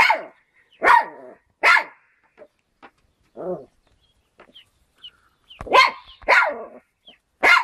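Small dog barking in short, sharp yaps, about seven at uneven intervals, one softer and lower bark near the middle.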